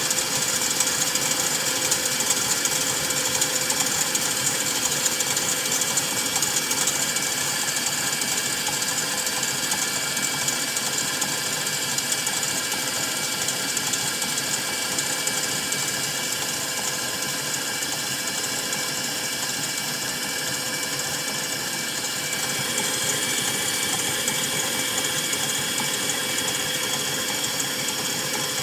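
KitchenAid stand mixer running at medium-high speed, its whisk attachment beating egg whites to a froth: a steady motor whir and whine with a hiss.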